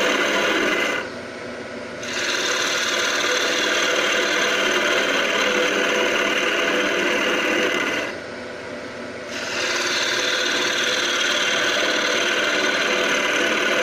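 A turning gouge cutting a spinning birch blank on a wood lathe: a steady, rough shearing hiss as shavings peel off. Twice the tool lifts off for about a second, leaving only the quieter lathe running.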